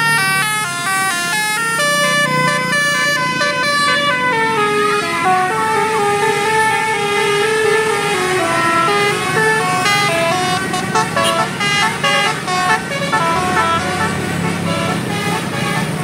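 Bus telolet horn of the 'Basuri' type playing a melody of quick stepped notes that changes pitch several times a second.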